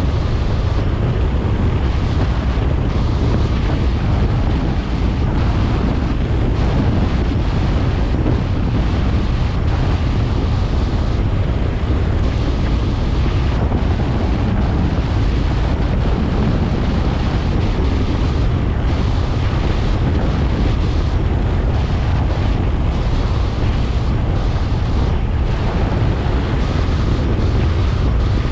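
Wind rushing over the microphone of a GoPro on a moving car: a loud, steady, even rush, heaviest in the low end, with no letup.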